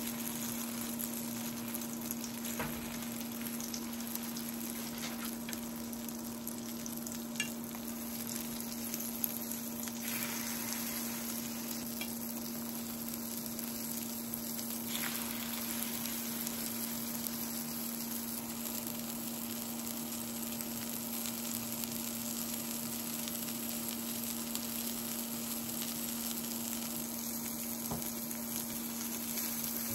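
Egg-battered slices of meat sizzling in oil in a nonstick frying pan, with a few light taps of wooden chopsticks against the pan as the slices are nudged and turned. A steady low hum runs under the sizzle.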